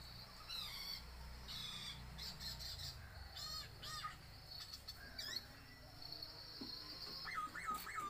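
A man whistling bird-call imitations with his mouth: a string of short chirps and quick up-and-down whistled glides, with a long held high whistle about five to seven seconds in.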